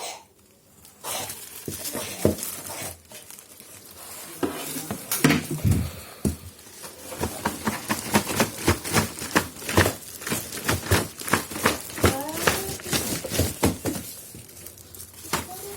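Hard plastic parts and packaging being handled during an unboxing: a quick, irregular run of clicks and knocks with some crinkling, busiest in the second half.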